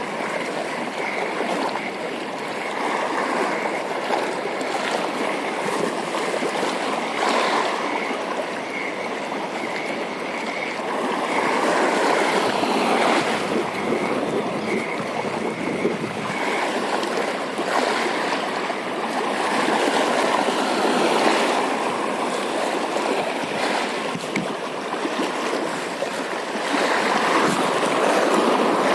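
Sea water washing and lapping, a steady rush that swells louder a few times.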